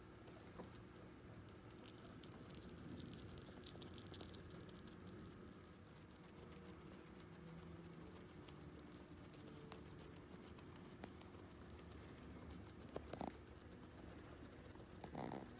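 Guinea pigs chewing kale and hay: faint, fast crunching clicks and rustles over a low steady hum, with two louder short knocks near the end.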